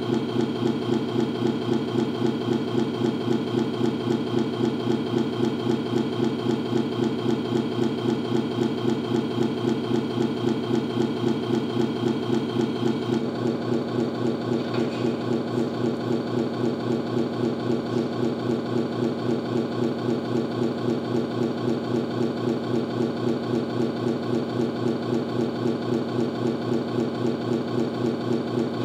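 Sound module of a 1/14-scale Tamiya Scania RC truck playing a diesel truck engine running through its small speaker, a steady pulsing rhythm. The tone changes slightly about halfway through.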